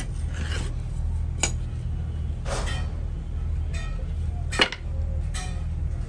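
Metal trowel scraping packed moulding sand off a casting flask in short strokes, with a sharp knock about four and a half seconds in, over a steady low hum.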